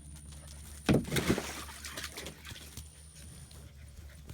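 Water splashing and sloshing as a puppy plays in a small pool, with a sudden loud splash about a second in.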